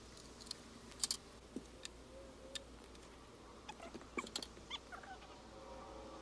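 Faint scattered clicks and taps from roof-coating work with a paint roller, most of them bunched about four seconds in, along with a few short, faint squeaky chirps.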